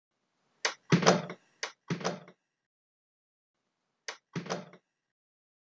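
Door sound effects: quick clicks, each followed by a heavier thud, like a latch and a door swinging shut. There is a cluster of four about a second in and a pair about four seconds in.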